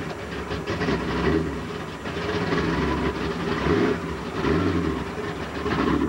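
Tuff truck's engine running, heard from inside the cab, its pitch rising and falling slightly.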